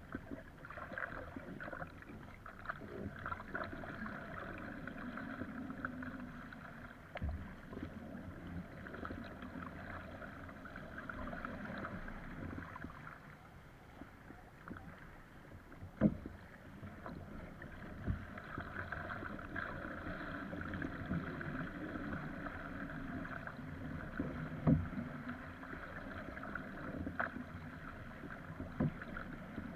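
Water rushing and splashing around a surfski paddled through choppy waves, with paddle strokes and scattered sharp slaps of water on the hull; the two loudest slaps come about sixteen seconds and about twenty-five seconds in.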